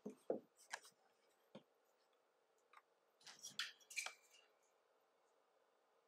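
Faint handling noise: a few light clicks and taps as a plastic LED video light panel is turned over in the hands, with a short cluster of clicks and rustle about three to four seconds in.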